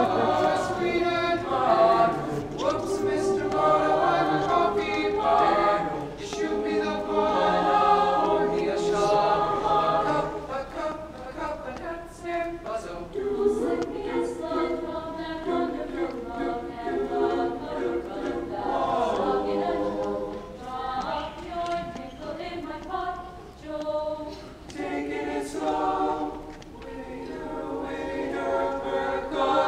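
Mixed-voice chamber choir of high school boys and girls singing a cappella, several parts at once.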